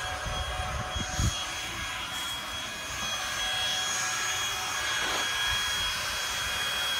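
Leaf blower running steadily with a high whine and a rush of air, blowing dust out of a pickup truck's cab. A few low thumps come about a second in.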